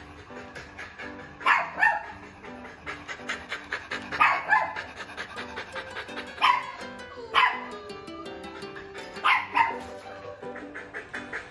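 Beagle barking in short loud barks, mostly in pairs, every two or three seconds, over background music.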